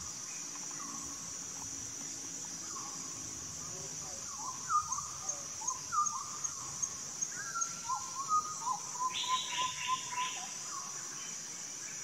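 A steady high-pitched insect drone, with a bird giving a run of short, hooked call notes about two a second from about four seconds in, and a harsh rasping burst about nine seconds in.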